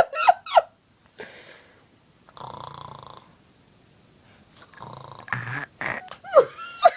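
A small child imitating snoring: two throaty pretend snores, each about a second long, a couple of seconds apart.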